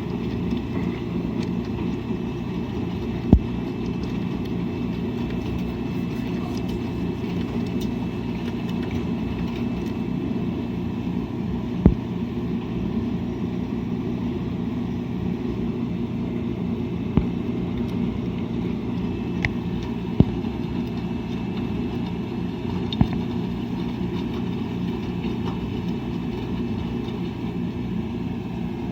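Washing machine running with a steady low rumble, broken by a few sharp knocks spread through the stretch.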